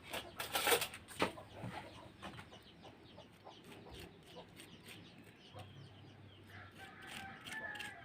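Chickens clucking faintly in the background, with a few short clicks and scrapes in the first second or so.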